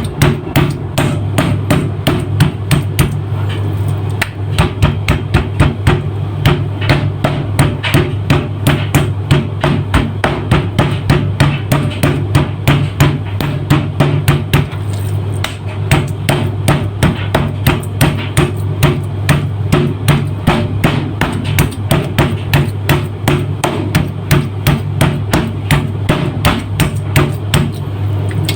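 Meat mallet pounding raw chicken breast, a rapid, steady run of sharp blows with a couple of brief pauses, tenderizing the tough meat. A steady low hum runs underneath.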